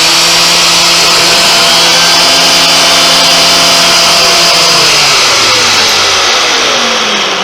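Shop vac hooked to an orbital sander running very loud with a steady motor whine and a rush of air. About five seconds in it is switched off, and the motor's pitch falls as it spins down.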